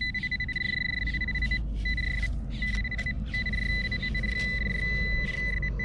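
Nokta AccuPoint pinpointer sounding a steady high-pitched alert tone that cuts out and comes back several times as its tip is moved through the sand, signalling a metal target just under the surface.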